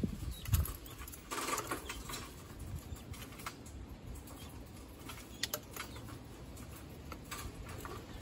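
Young guinea fowl pecking at feed in a wire cage: scattered faint taps and clicks a few seconds apart, over a low steady rumble.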